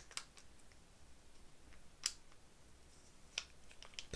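Threaded battery cap of a Holosun LS321 laser designator being screwed back on by hand, gently so as not to damage the thread: a few faint, scattered clicks and ticks of metal and plastic parts.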